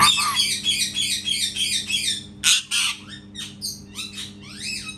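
Parrot chattering in a fast run of high chirps for about two seconds, then two loud squawks and several short rising and falling whistled calls.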